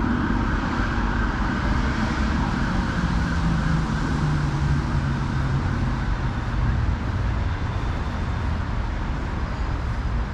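Steady road traffic, with a vehicle engine passing whose note drops in pitch between about three and six seconds in. An emergency vehicle's siren dies away over the first couple of seconds.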